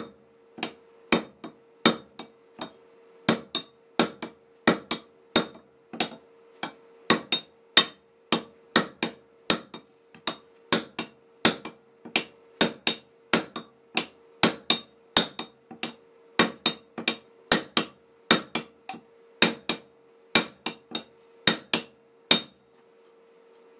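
Hammer striking an aluminum wedge into the kerf in the top of a wooden axe handle, metal on metal, about two blows a second and stopping near the end. The wedge is being driven flush to spread the wood and lock the axe head on the handle.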